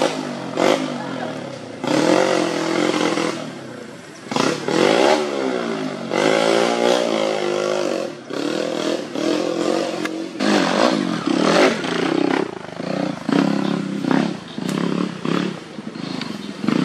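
Dirt bike engine revving in repeated bursts, its pitch rising and falling as the throttle is opened and closed.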